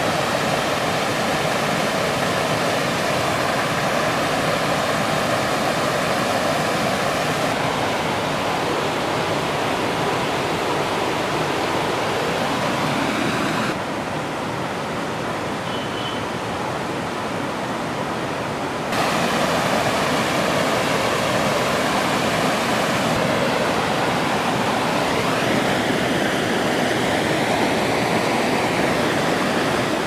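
Rocky mountain stream rushing over boulders and small cascades: a steady loud wash of water whose tone changes abruptly several times, quieter and duller for a few seconds in the middle.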